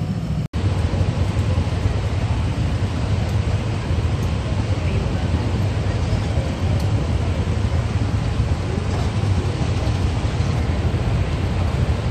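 Several motor scooter engines idling together in a steady, low drone, with crowd chatter around them; the sound cuts out for an instant about half a second in.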